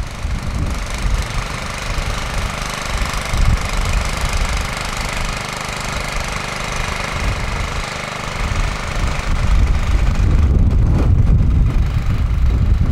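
Generator engine running steadily, driving a small pump that draws water out of the culvert. It gets louder and rougher about ten seconds in.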